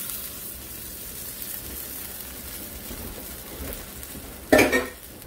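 Ground beef and milk sizzling steadily in a hot cast-iron skillet just after the milk is poured in. A short burst of voice about four and a half seconds in.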